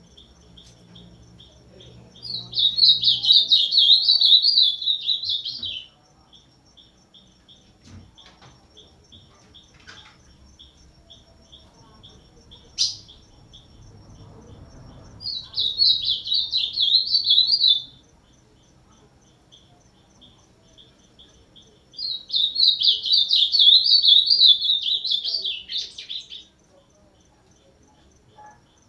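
Ultramarine grosbeak (azulão) singing three fast, warbled song phrases of a few seconds each. The last phrase is the longest.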